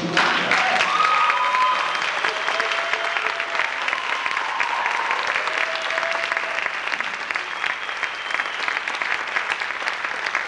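Audience applauding, with cheers and whoops over the dense clapping.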